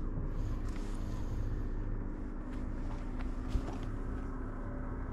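A steady low engine hum, with faint scattered clicks and a single short thump about three and a half seconds in.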